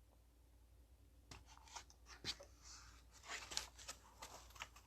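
Faint, scattered clicks and rustling from small parts and their packaging being handled, starting about a second in.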